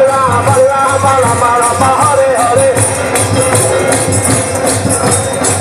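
A group chanting and singing in unison over a steady drum beat, with a jingling tambourine. The voices drop back about two and a half seconds in, leaving the drum and jingles to carry on.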